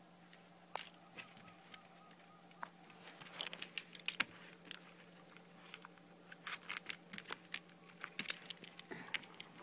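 Handling noise from a phone camera: faint scattered clicks and rustles as fingers grip and brush over it, thickening from about three seconds in, over a faint steady hum.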